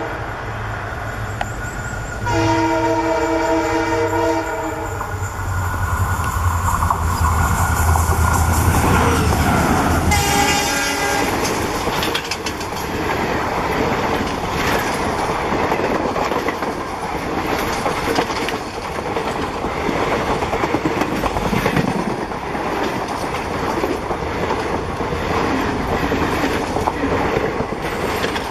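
EMD WDP4-family diesel locomotive running past at speed under its deep engine drone. Its multi-note air horn sounds about two seconds in for a few seconds, then again briefly as the locomotive passes. The passenger coaches then rush by with a steady clickety-clack of wheels over the rail joints.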